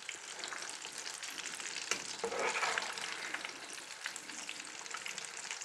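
Breaded croquettes deep-frying in hot oil in a stainless-steel saucepan: a steady crackling sizzle of bubbling oil, as a metal spoon turns them in the pan.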